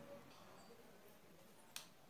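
Near silence: quiet room tone, with one short, sharp click near the end.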